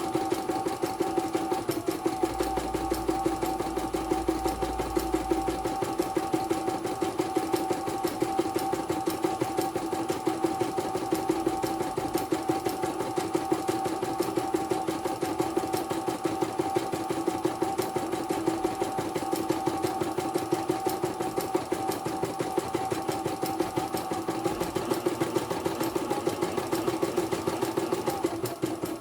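CNY portable computerized embroidery machine stitching steadily, with a fast, even needle rhythm over a motor hum, as it runs a test after servicing.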